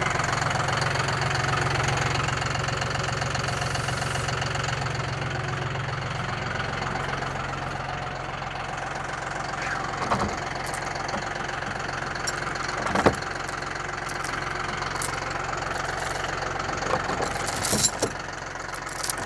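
An engine running steadily with a slight knocking rumble, easing down a little after the first few seconds. A few sharp knocks fall in the second half, the loudest near the end.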